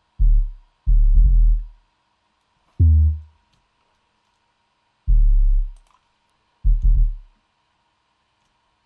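Solo 808 bass notes playing an uneven trap pattern: about seven deep, pitched bass hits, some in quick pairs, each fading out within a second, with one note higher in pitch about three seconds in.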